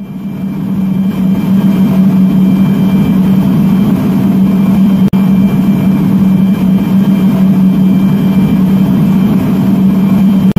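A loud, steady mechanical drone with a strong low hum, like a running engine or motor. It fades in at the start and breaks off for an instant about five seconds in.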